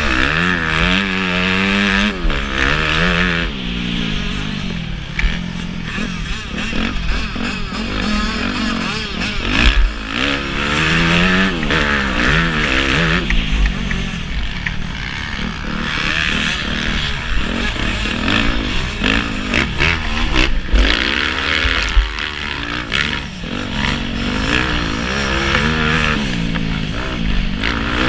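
Off-road motorcycle engine revving up and down repeatedly as the rider opens and closes the throttle through a lap, with wind noise on the helmet-mounted camera.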